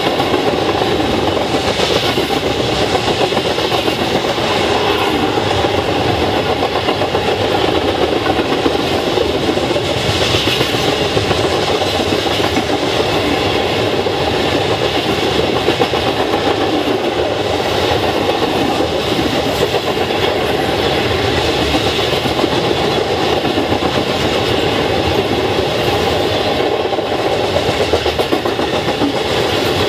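Tank cars of a freight train rolling past, steel wheels on the rails making a steady, continuous clatter.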